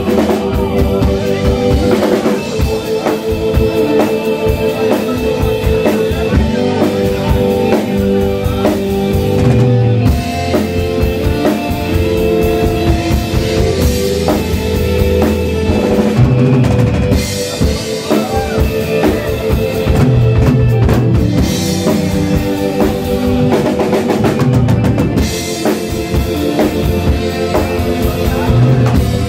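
Live rock band playing an instrumental passage with no vocals: the drum kit is loudest, a steady beat of kick drum and cymbals, over bass guitar, guitar and held keyboard notes.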